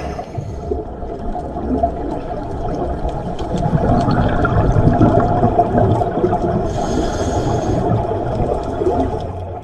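Underwater sound of a scuba diver breathing through a regulator: a muffled gurgling rush of exhaled bubbles that swells in the middle, then a short hiss of the inhale about seven seconds in.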